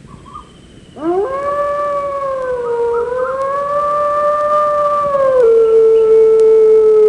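A dog howling: after about a second of quiet, one long howl swoops up and holds, then drops to a lower pitch about two thirds of the way through and carries on.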